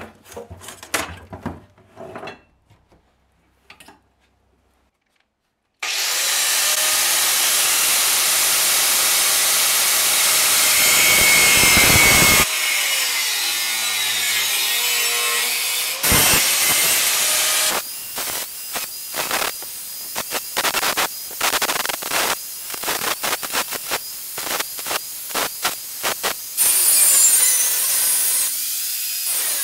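A few clicks of a power plug being pushed into a wall outlet. Then an angle grinder grinds the steel of an old saw blade, throwing sparks. It runs steadily for several seconds, and later the disc goes on and off the metal over and over in short stretches.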